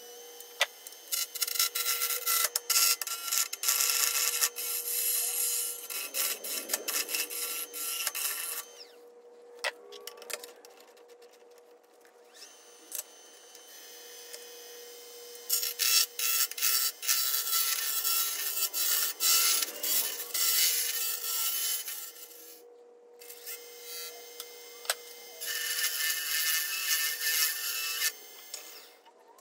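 Wood lathe turning a maple blank: a carbide turning tool scrapes and hisses as it peels shavings off the spinning wood in three spells of cutting with short breaks between, over the lathe motor's steady hum.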